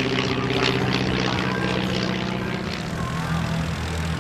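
Piston engine and propeller of a vintage Stampe SV-4 biplane flying overhead at a steady drone. Its note drops a little a bit past halfway through.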